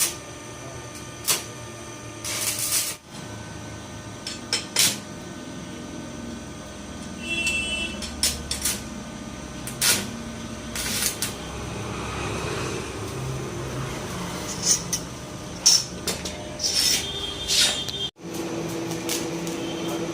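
Metalworking sounds during heavy welding work: scattered sharp clanks and knocks of metal over a steady machine hum.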